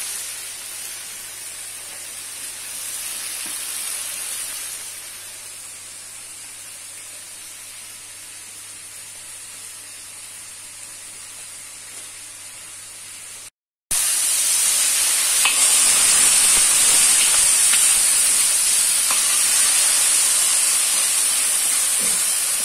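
Beef pieces frying in oil in a wok, giving a steady high sizzle. It is softer at first, cuts out briefly about 14 seconds in, then comes back louder with a few faint crackles.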